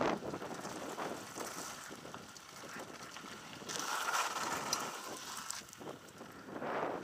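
Wind rushing over a helmet camera's microphone on a fast mountain bike descent, with the hiss of tyres rolling over a gravel track. The wind swells loudest at the start and again near the end.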